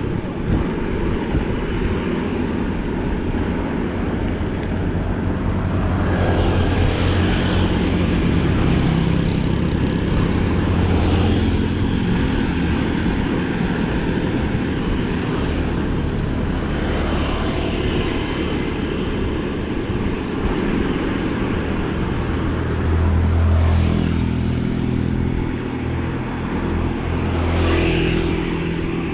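Bicycle tyres rolling over the road surface: a steady low rumble that swells several times along the way.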